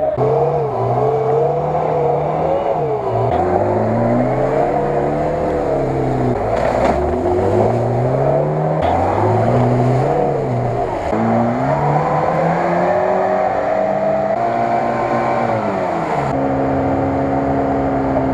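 Lada Niva 4x4 engine revving hard over and over, the revs climbing and dropping every second or two, as the car churns through deep mud with its wheels spinning; the revs hold steadier near the end.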